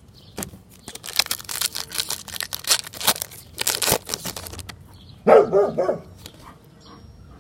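Foil card-pack wrapper crinkling and tearing for several seconds, then a dog barks two or three times in quick succession, loudly, about five seconds in.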